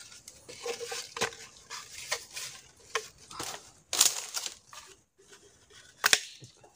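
Muddy bamboo trap tubes knocking and scraping against each other and on wet mud as a mud lobster trap is handled and reset by hand: a series of irregular hollow knocks and clicks over crackling handling noise, the loudest knock about four seconds in and another near the end.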